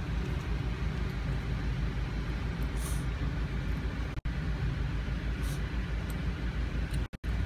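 Steady low mechanical rumble, with a couple of faint brief scratchy sounds; the sound cuts out for an instant about four seconds in and again near the end.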